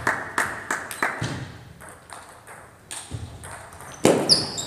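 Scattered hand claps die away in the first second. About four seconds in, a celluloid table tennis ball is struck and bounces on the table, giving sharp clicks with a high ringing ping.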